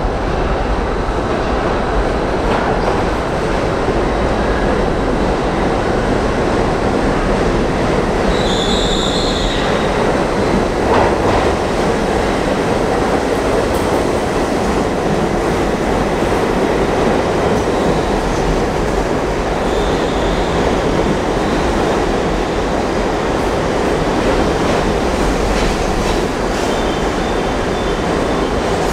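An R68 subway train entering an underground station, its steel wheels rumbling and clattering on the rails. A brief high-pitched wheel squeal comes about nine seconds in, with fainter squeals later on.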